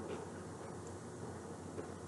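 Quiet, steady room hum with a faint click near the end.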